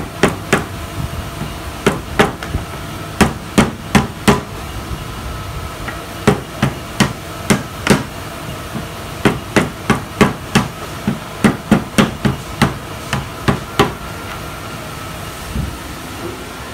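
Rubber mallet tapping the snap-in molding of a fiberglass door's glass insert into place: dozens of sharp knocks in quick, irregular runs, which stop about fourteen seconds in.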